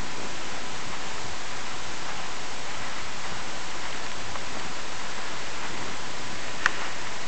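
Steady, even hiss like static, with one sharp click near the end.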